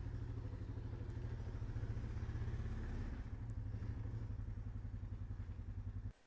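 Honda Foreman 450 ATV's single-cylinder four-stroke engine running steadily at low revs, with an even pulsing beat. It stops abruptly near the end.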